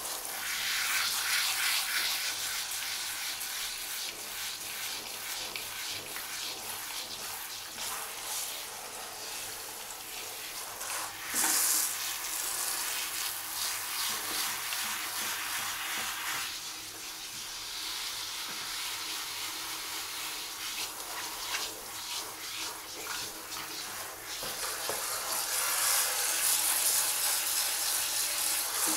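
Water spraying from a handheld shower head onto a wet cat's fur: a steady hiss that swells louder briefly about eleven seconds in and again near the end.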